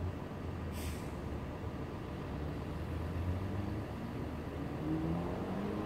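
Car engine accelerating in the distance over a low steady rumble, its note rising from about four seconds in and climbing through a gear change near the end. A brief faint hiss about a second in.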